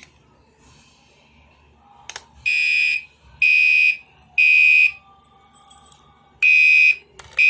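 Fire alarm horn going off in the temporal-3 evacuation pattern: three loud half-second blasts a second apart, a pause of about a second and a half, then the next set. The horn starts about two and a half seconds in, just after a single click.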